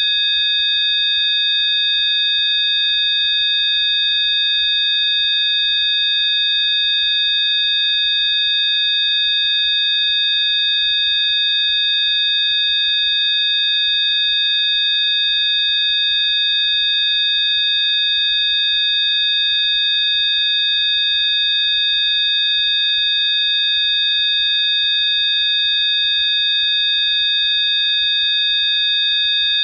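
Synthesized Rife-therapy frequency tones: several steady, high-pitched pure tones sounding together, unchanging.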